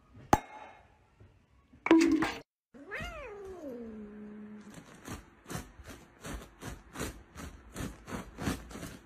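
A sharp pop of a cork leaving a bottle, a short loud cry, then a cat's long meow that falls in pitch, followed by quick regular taps about three a second.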